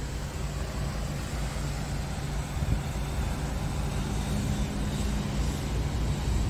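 Scania P-series truck's diesel engine idling, a steady low hum with no change in speed.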